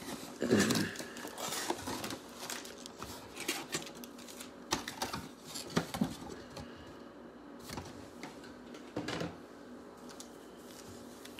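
A cardboard trading-card box being opened and handled: scattered rustles, taps and light scrapes of cardboard and paper, loudest just after the start.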